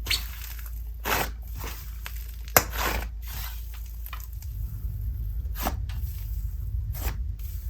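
Dense butter slime being stretched, pulled and pressed by hand: irregular sticky squishes and tearing sounds with a sharp snap about two and a half seconds in. The more the slime is fluffed up, the more sizzly it sounds.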